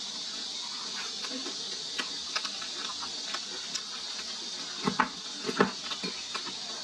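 Close-up eating sounds: small clicks of chewing and wooden chopsticks in a ceramic bowl of crispy fried pork and rice, with two louder clatters about five seconds in, over a steady background hiss.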